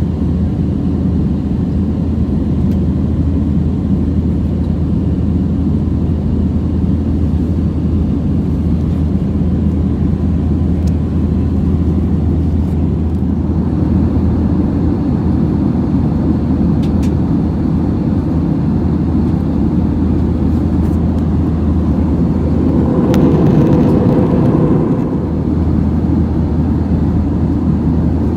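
Steady low drone of engines and airflow inside the cabin of an Airbus A320 in flight. The drone swells briefly about three-quarters of the way through.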